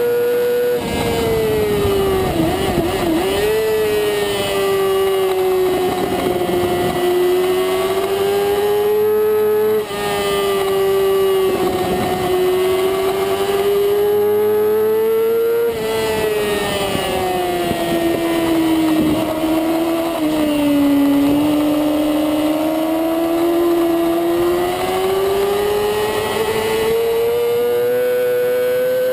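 Middleweight supersport racing motorcycle engine at high revs, heard from a camera mounted on the bike. About a second in the revs drop as the rider brakes and shifts down from sixth gear. The engine note then rises and falls with the throttle through the corners, with brief dips near the middle and a steady climb in revs toward the end.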